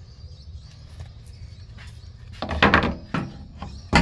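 Workshop handling noise over a low steady hum: a quick clatter of knocks about two and a half seconds in, then one sharp knock near the end, as pieces of wood or tools are moved and set down.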